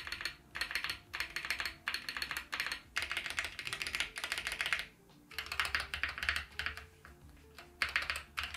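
Stabilized keys on a MonsGeek M1 HE-SP magnetic Hall-effect keyboard with an aluminium plate, pressed in quick bursts of clacks about every 0.7 s, with a short pause near the end. The stabilizers are unlubed from the factory, and the owner judges they need lubing or replacing.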